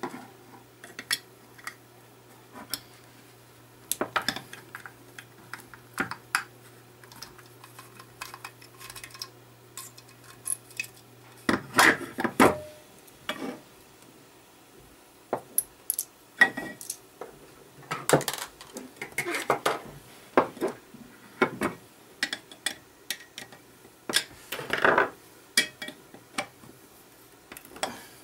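Irregular clicks, clinks and knocks as the metal case and internal parts of an Ibanez DE7 delay guitar pedal are handled and taken apart, with a screwdriver set down on the wooden bench. A low steady hum underneath stops a little before halfway through.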